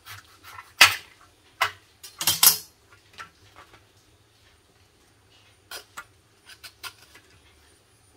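A kitchen knife and then a hand vegetable peeler scraping and cutting the rind of a breadfruit. A few sharp strokes come in the first three seconds, and lighter scattered clicks follow near the end.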